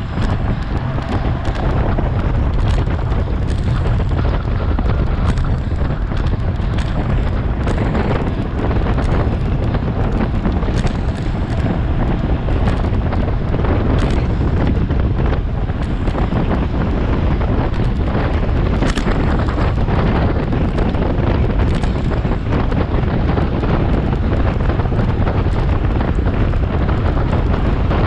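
Heavy wind buffeting on the microphone of a road bike racing at about 22 to 27 mph, steady and rumbling, mixed with tyre and road noise and scattered light clicks.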